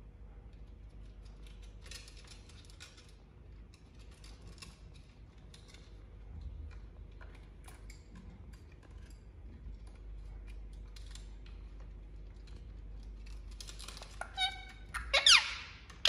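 Indian ringneck parakeet giving a few loud squawking calls near the end, the loudest a sharp downward-sweeping screech. Before that, only faint scattered clicks and rustles.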